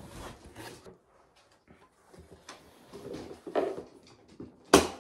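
Hard plastic rifle case being handled and closed: scattered hollow knocks and clicks of the plastic shell, then one sharp, loud click near the end.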